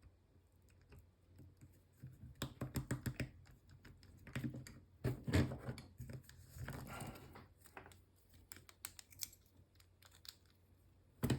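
Lock picks and a tension tool working in an American Lock 1100-series padlock: bursts of small, sharp metal clicks and rattles, clustered between about two and seven seconds in, then only a few faint ticks.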